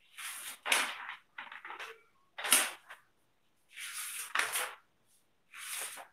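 A string of short rustling noises, about eight in six seconds, some coming in quick pairs: something such as paper being handled.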